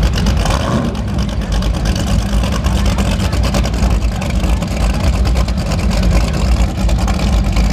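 High-performance powerboat engines idling at the dock: a steady, deep, choppy rumble that holds an even level.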